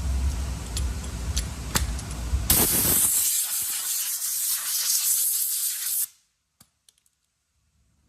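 A low rumbling noise with a few clicks, then a loud spray hiss starts about two and a half seconds in and cuts off abruptly after about three and a half seconds. It comes as the freshly scuffed alloy wheel is readied for paint.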